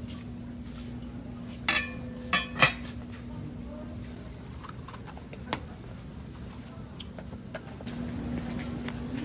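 A few sharp clinks and knocks of a cup and lid against the bowl of a sikhye (rice punch) dispenser, about two seconds in, with a smaller one later. The drink is being scooped from the top because the machine's spout has frozen. A steady low hum runs underneath.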